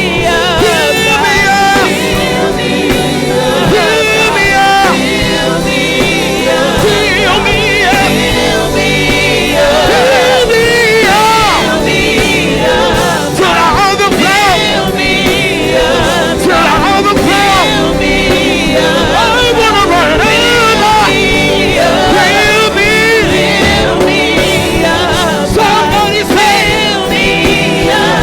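Gospel worship music: voices singing over steady band accompaniment, the singing full of sliding, ornamented runs.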